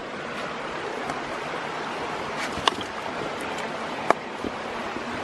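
Steady rush of a waterfall cascading over rocks, with a few sharp clicks about halfway through.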